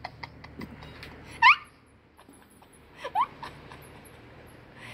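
A mouse giving short rising squeaks: a quick run of them about one and a half seconds in, which is the loudest sound, and another run at about three seconds.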